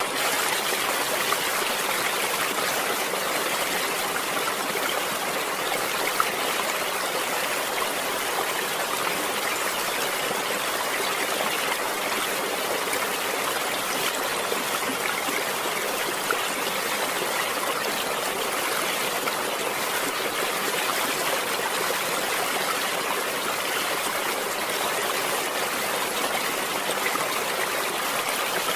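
A stream's water flowing steadily, an even rushing with no pauses or changes.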